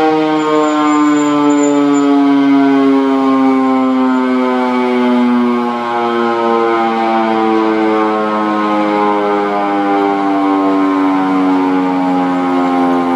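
Civil-defence warning siren sounding its monthly first-Wednesday-of-the-month test, one continuous wail slowly falling in pitch.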